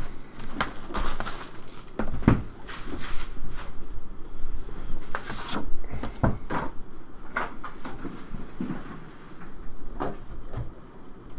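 A cardboard trading-card hobby box being handled on a table, with irregular knocks, scrapes and rustles as the box and its lid are slid and turned.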